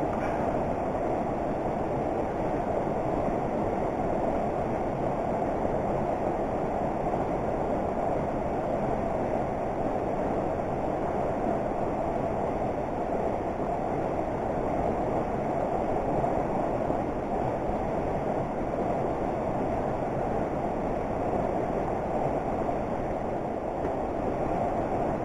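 Steady rushing of a creek flowing past, an even noise with no breaks.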